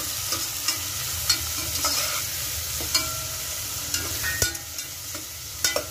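Chopped onions frying in hot oil in a stainless steel pot, a steady sizzle, while a metal spatula stirs them with irregular scrapes and clicks against the pot.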